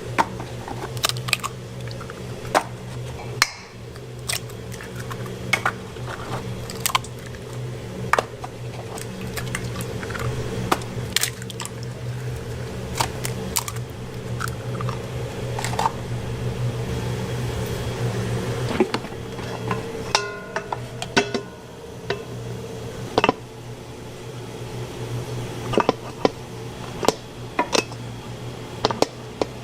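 Metal cooking utensils knocking and scraping against a pan, with irregular sharp clacks over a steady low hum.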